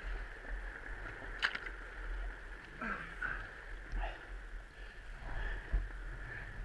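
Sloshing and squelching of mud and water as a dirt bike stuck in a muddy puddle is wrestled and tipped onto its side, with a sharp knock about a second and a half in.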